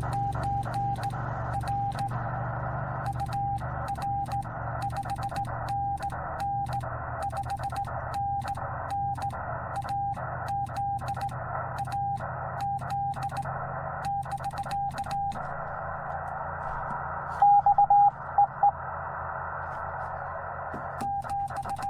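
Morse code (CW) from a Yaesu FT-891 transceiver: a single steady tone keyed on and off in dots and dashes over band hiss. A brief, louder run of tones comes about two-thirds of the way through.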